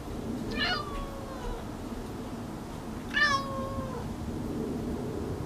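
A feral domestic cat meowing twice, two drawn-out meows that each drop in pitch and then hold level before trailing off.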